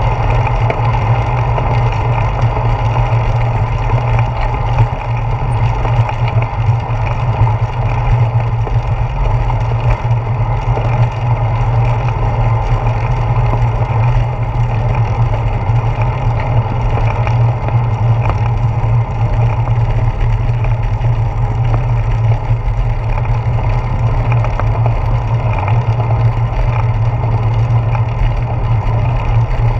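Riding noise picked up by a handlebar-mounted GoPro Hero 4 on a moving bicycle: wind on the camera and the tyres rolling over asphalt, heard as a steady, loud low rumble with an even hiss above it.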